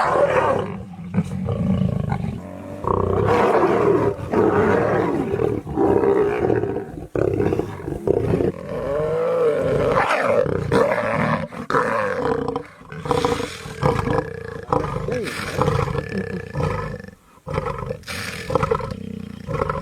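Lion roaring: a long run of loud roars, some lasting several seconds, broken by short pauses.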